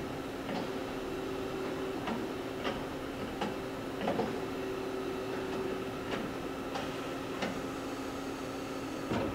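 Kitamura Mycenter 4 CNC vertical machining center running with a steady hum, its spindle spun up to nearly 10,000 RPM, with light ticks about every 0.7 seconds.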